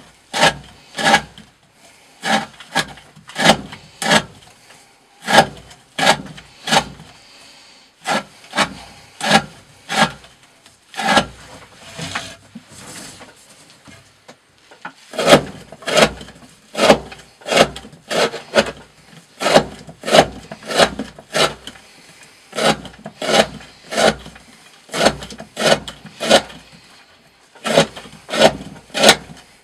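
Knife blade slicing through a thick rope over and over, each cut a short, sharp rasping stroke, about one to two a second, with a short pause in the middle.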